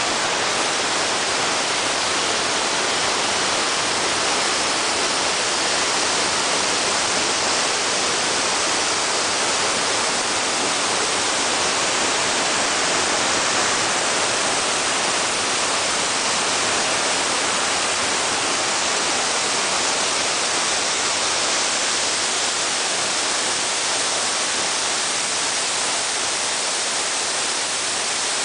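Steady, even rush of a fast-flowing creek's water pouring over its rocky bed.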